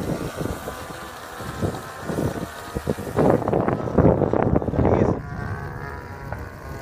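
Distant drone of a radio-controlled Yak 52's DLE-20RA two-stroke gas engine in flight, with wind buffeting the microphone in strong gusts from about three to five seconds in.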